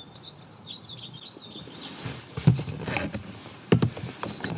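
A small bird chirping quick, wavering high notes in the background for the first couple of seconds. From about halfway, a few sharp knocks and clatter follow, as things are handled.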